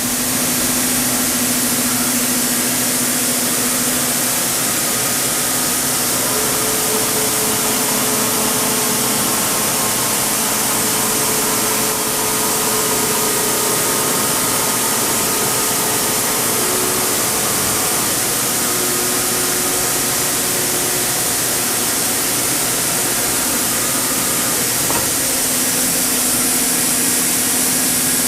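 HNK NT-16.20 CNC vertical turning center running under power: a steady hiss with a few held humming tones that come and go.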